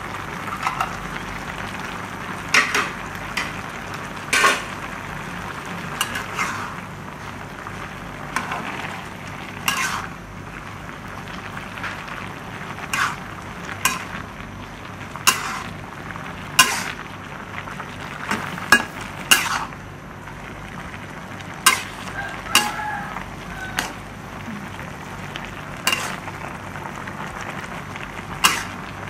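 Pork and vegetables for pinakbet sizzling in a metal pan while a metal spatula stirs them. The spatula scrapes and clicks against the pan every second or two.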